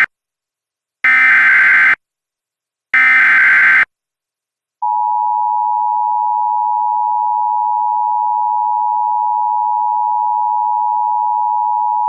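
Two bursts of EAS SAME header data tones, each about a second long with a short gap between. About five seconds in, the steady two-tone Emergency Alert System attention signal begins. This is the digital header and alert tone that open an emergency alert broadcast.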